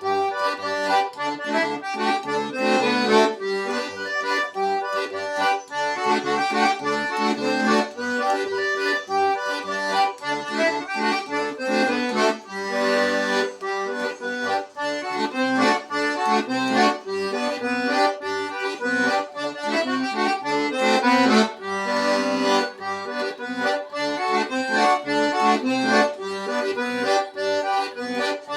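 Button accordion playing a lively traditional tune without pause, a melody over short repeated bass notes.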